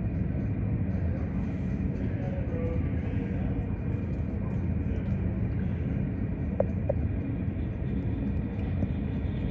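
Steady low rumble of airport ramp noise and jet engines, muffled through terminal glass, with two short high chirps about two-thirds of the way through.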